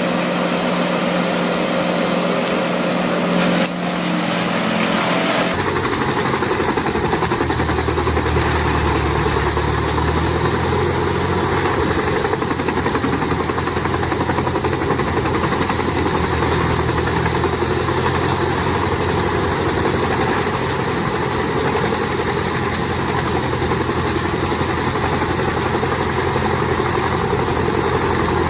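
Wood chipper's engine running steadily under a broad mechanical noise. About five seconds in, the sound changes abruptly to a deeper-running engine, which holds steady to the end.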